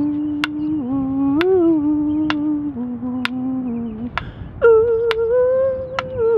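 Someone humming a slow tune in long held notes, with a sharp click about once a second keeping time. The humming breaks off briefly just after four seconds in and comes back on a higher note.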